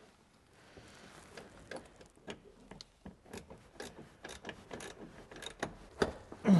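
Socket ratchet wrench clicking in short, irregular strokes as a seat-harness mounting bolt is tightened, with a louder click near the end.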